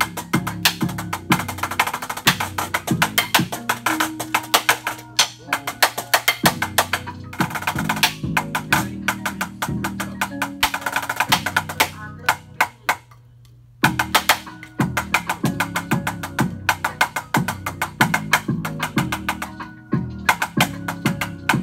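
Fast drumstick strokes on a BYOS sphere practice pad, a snare-style solo of rolls and accented hits played over backing music with sustained low notes. The strokes stop for about a second and a half just past the middle, then resume.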